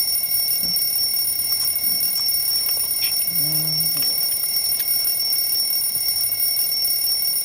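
Alarm clock ringing in a cartoon soundtrack: a steady, unbroken high-pitched tone.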